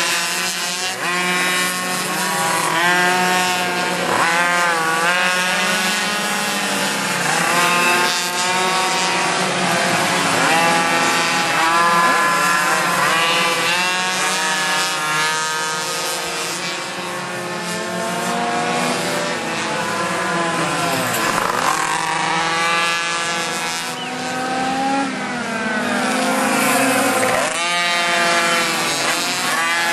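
Several liquid-cooled Chinese minimoto pocket bikes racing, their small two-stroke engines running at high revs. Their overlapping notes keep climbing and dropping in pitch as the bikes accelerate, slow and pass.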